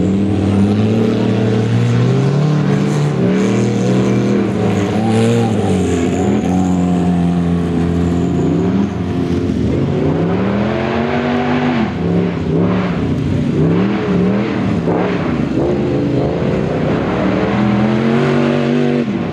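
Autocross race cars' engines revving hard on a dirt track, the pitch climbing and dropping again and again with throttle lifts and gear changes.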